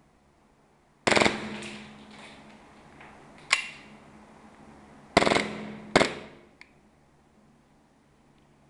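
KSC G26C green-gas blowback airsoft pistol firing: a short rapid burst about a second in, a single shot, another quick burst, a further shot, then a faint click.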